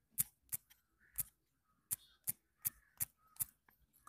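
Key-tap clicks from typing on a smartphone's on-screen keyboard: about eight sharp, separate clicks, unevenly spaced.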